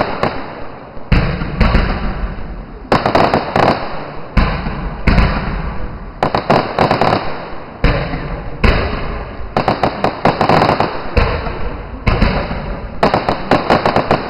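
Fireworks display: aerial shells bursting in quick succession, about one bang a second, with crackling after the bursts.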